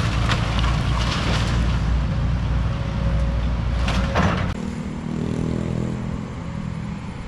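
Diesel engine of an excavator running hard while demolishing a house, with several sharp cracking and crashing impacts, the biggest about four seconds in. Just after, the engine settles to a lower, quieter running.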